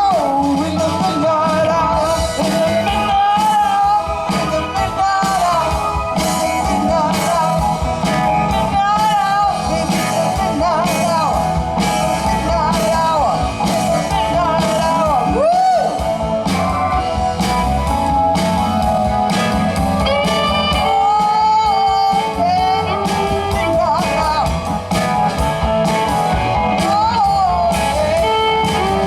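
Live blues-rock band playing: electric guitar with bending notes over bass and drums.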